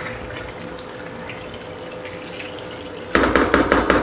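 Chicken pieces frying in masala in a pan, a steady sizzle; about three seconds in, a spatula stirs and turns the pieces against the pan, a sudden, much louder run of scraping and clatter.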